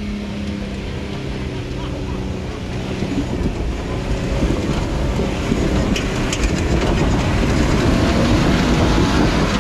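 Jeep Wrangler JK engine pulling up a steep dirt hill under load, growing louder as it climbs, with a deepening rumble of tyres over dirt and a few sharp clicks about six seconds in.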